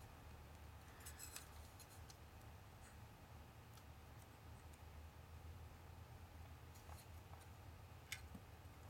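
Near silence with a few faint clicks of plastic building-brick pieces being handled and pressed onto a toy helicopter model, over a low steady hum.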